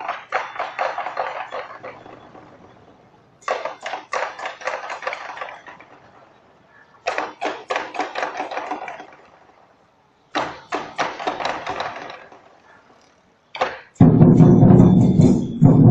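Lion dance percussion: short bursts of quick, ringing strikes about every three and a half seconds, fading away between them. Near the end the big drums come in with a loud, continuous beat.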